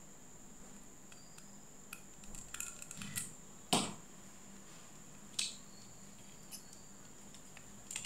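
Small clicks and taps of a plastic earbud charging case and a screwdriver being handled as the case is taken apart, with a sharp click just before four seconds in and another about five and a half seconds in.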